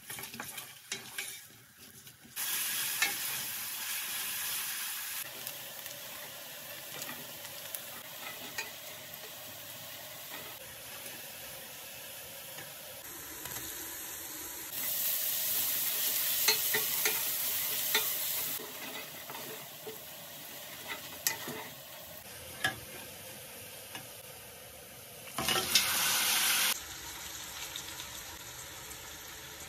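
Sliced onions frying in oil in a stainless steel pot, with a steady sizzle and the clicks and scrapes of a wooden spoon stirring against the pot. The sizzle swells louder for a few stretches of a few seconds each.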